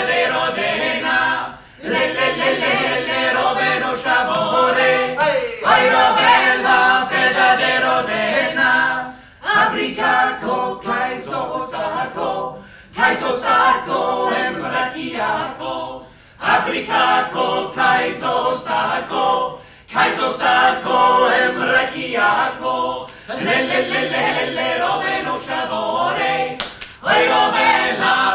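A small group of voices singing a song together, unaccompanied. The song comes in phrases of about three to four seconds, each broken by a short pause for breath.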